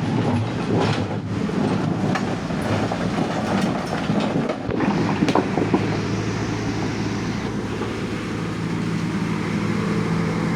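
Diesel engine of an excavator running steadily under load, with repeated metallic clanks and knocks over the first half or so, then a steadier engine drone toward the end.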